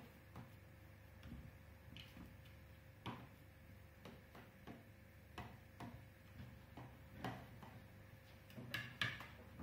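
Faint, irregular soft taps and clicks as cooked rice is pressed down and levelled in a stainless steel pot with a plastic scraper, a few more clustered near the end.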